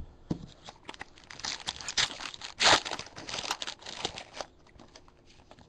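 Foil wrapper of a 2011 Bowman Draft baseball card pack being torn open by hand and crinkled. It makes a dense crackling that is loudest about two and a half seconds in.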